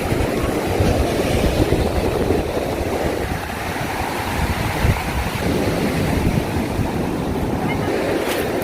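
Pacific Ocean surf rushing steadily on the beach, with wind buffeting the microphone as low rumbling gusts.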